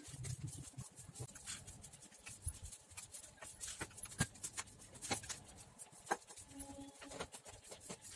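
Household tidying: irregular sharp clicks and knocks, with some rubbing and scraping, as things are handled and moved about a room.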